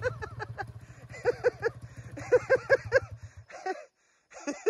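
A small motorcycle engine running low and slow, dying away about three and a half seconds in as the bike stalls or goes down, under bursts of short high-pitched laughter in quick runs of four or five.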